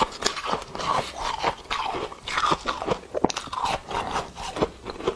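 A person chewing a mouthful of powdery freezer frost (foam ice covered in frost): many quick, irregular crunches, a few of them sharper and louder.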